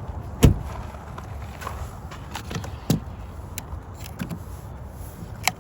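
A sharp knock about half a second in, then a few lighter clicks and knocks, over a low steady rumble.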